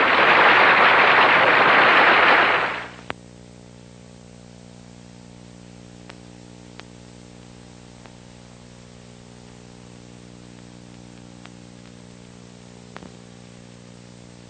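A loud burst of hiss and static for the first two or three seconds, then a steady electrical hum with a few scattered sharp clicks and pops, the sound of old film countdown leader running between reels.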